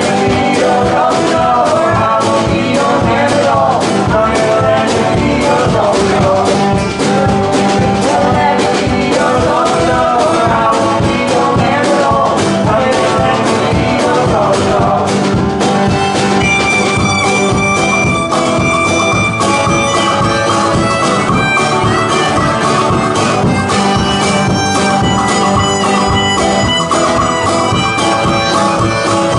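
Live acoustic band playing a bluegrass-style tune on banjo, rack harmonica, acoustic guitar, upright bass and drums. A woman sings for roughly the first half, and the harmonica carries the melody in the second half.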